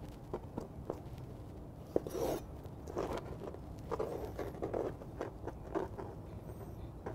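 Soft scraping and light taps, on and off, as wet dill pickle planks are slid and gathered by hand on a plastic cutting board.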